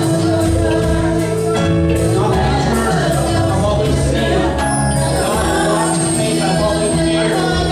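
Worship music playing, with singing over steady sustained chords.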